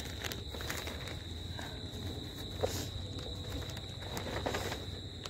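Rustling and light knocks of someone handling a plastic package and a handheld camera, over a steady high-pitched thin hum.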